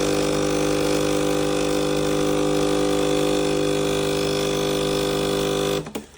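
Sage Barista Express espresso machine running with a loud, steady motor hum, which cuts off abruptly near the end.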